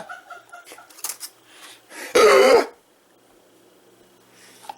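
A man's hiccup coming out as a loud, burp-like croak of about half a second, a little after two seconds in, with a faint click about a second in. He says these hiccups hurt.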